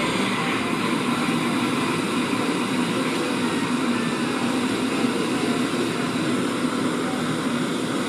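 Espresso machine steam wand hissing steadily as it steams milk in a steel pitcher.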